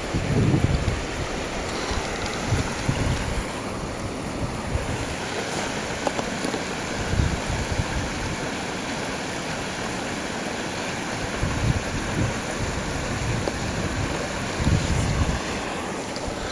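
Water rushing and splashing through rubble and broken timbers, a steady hiss, with gusts of wind buffeting the microphone every few seconds.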